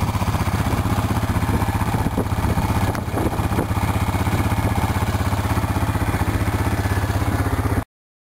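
Single-cylinder ATV engines running as a quad climbs over sandy humps, a steady low chug with a fast, even pulse. The sound cuts off abruptly near the end.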